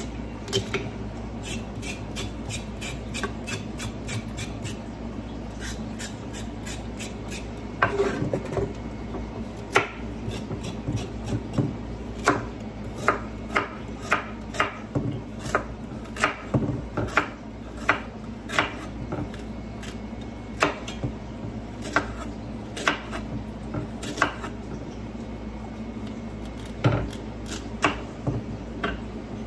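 Kitchen knife slicing a carrot on a wooden cutting board. The blade meets the board in irregular knocks, light and quick in the first few seconds, then firmer at about one or two a second.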